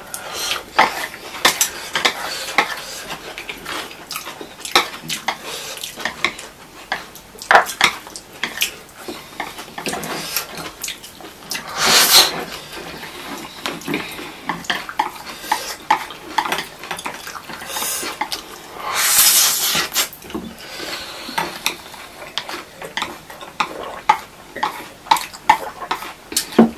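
Close-miked eating sounds: chopsticks clicking and scraping on ceramic plates, with chewing and two longer slurps of chowmein noodles, about twelve seconds in and again around nineteen seconds.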